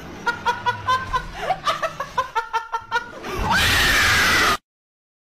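High-pitched laughing in quick, evenly spaced bursts, then a loud, harsh scream about three and a half seconds in that cuts off suddenly.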